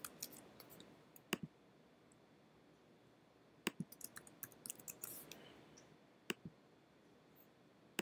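Faint computer mouse clicks, each a quick press-and-release pair, coming three times a few seconds apart, with a short run of lighter clicks a little past the middle.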